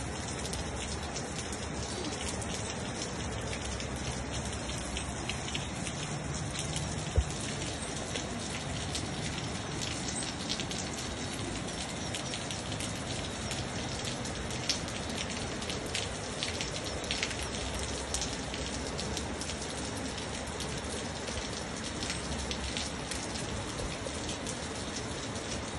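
Rain falling steadily, with scattered drops striking close by, and one sharp tap about seven seconds in.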